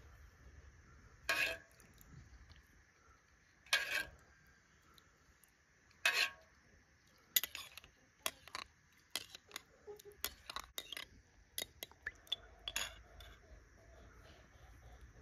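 Dishes and utensils being handled, clinking and scraping: three louder clatters a couple of seconds apart, then a quicker run of small clicks and clinks that dies away near the end.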